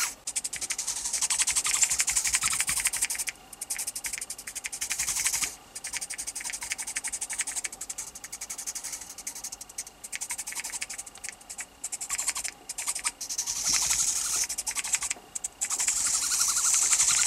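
Tiny electric drive motor and gears of a micro radio-control toy duck, a high-pitched buzz of very rapid ticking. It stops and starts several times as the duck is driven in short bursts.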